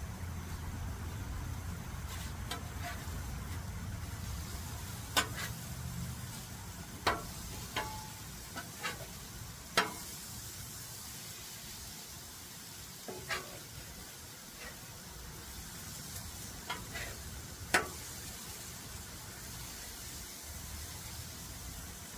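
Crab cakes sizzling on a flat-top griddle, with several sharp clicks and scrapes of a metal spatula on the griddle as they are turned. A low rumble underneath fades out within the first few seconds.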